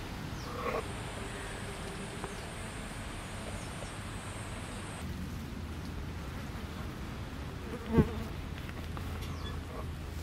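Insects buzzing, with a thin, high, steady insect drone for the first few seconds. A single sharp knock comes about eight seconds in and is the loudest sound.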